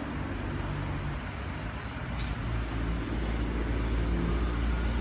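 Sydney Trains Tangara electric multiple unit approaching along the track, a steady low rumble that grows slowly louder as it nears.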